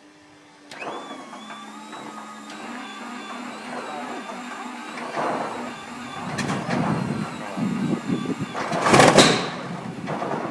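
Wright R-3350 eighteen-cylinder radial aero engine being cranked over with a whining starter. It catches irregularly with growing uneven bursts and one loud burst about nine seconds in, but does not keep running.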